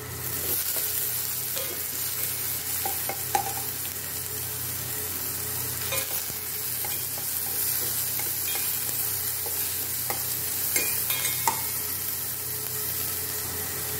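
Chopped vegetables sizzling in sesame oil in a metal pot, a steady frying hiss. A spoon stirs them, clicking against the pot now and then.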